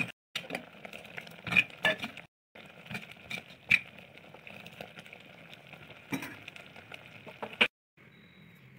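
Metal ladle stirring bubbling jaggery syrup with cooked moong dal in a pot, with a steady bubbling hiss and several sharp clinks of the ladle against the pot. Near the end it gives way to a quieter steady hum.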